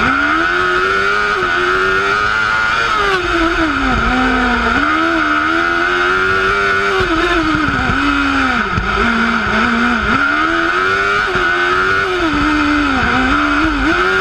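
Onboard sound of a single-seater race car's engine driven hard, its pitch climbing and falling over and over, with several short sharp dips between climbs.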